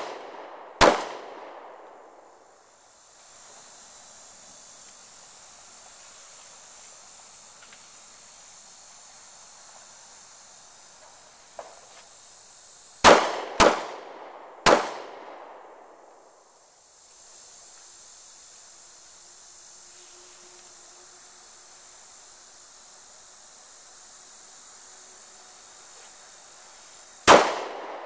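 Walther PPS 9mm pistol fired in failure-drill strings: a shot about a second in, then two quick shots with a third a second later about halfway through, and one more shot near the end, each followed by a short echo. Between the strings, insects buzz steadily in the background.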